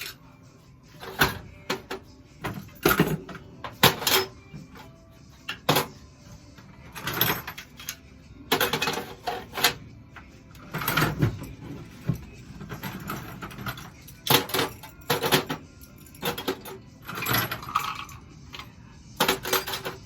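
Small hardware and conduit fittings being handled and dropped into storage containers: irregular clinks, rattles and knocks, some in quick clusters, a second or two apart.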